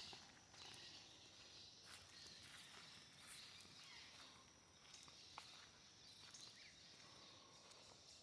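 Faint forest ambience: a steady high-pitched insect chorus, with scattered soft clicks and rustles of footsteps on the forest floor.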